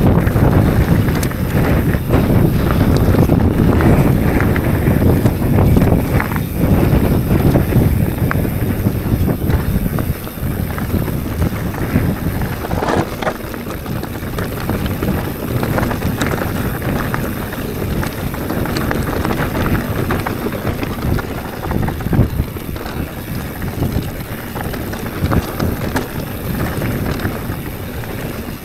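Mountain bike ridden over a dirt trail: tyre noise and the bike rattling over rough ground, with heavy wind noise on the microphone. It is loudest for the first ten seconds or so, then eases a little.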